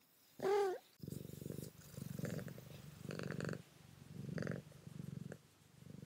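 A short meow, then a cat purring in a steady in-and-out rhythm, each buzzing breath lasting about half a second.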